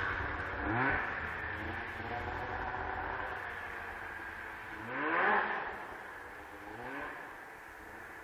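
2001 Arctic Cat ZR 800 snowmobile's two-stroke twin engine pulling away and fading into the distance, revving up three times: about a second in, loudest a little past halfway, and fainter near the end.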